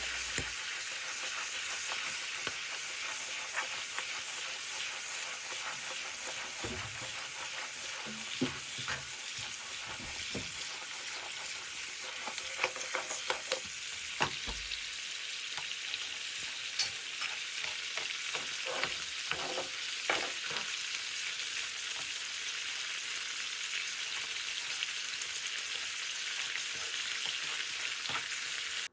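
Razor clams frying in melted margarine in a pan: a steady sizzle, with a utensil clicking and scraping against the pan now and then as they are stirred, most often through the middle stretch.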